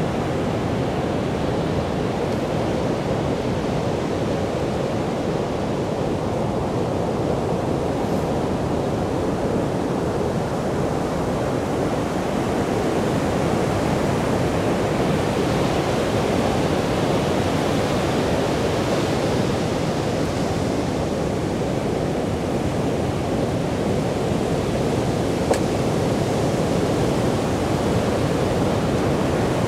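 Ocean surf breaking on a beach: a steady, deep rush of waves with no distinct breaks between them.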